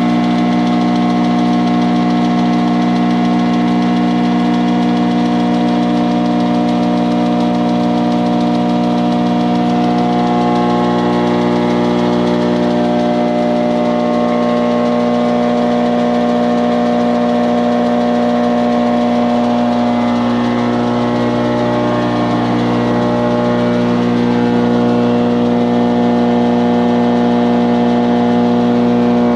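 Wadkin MJ planer running, a steady electric-motor hum with a whirr above it; the tone shifts slightly partway through.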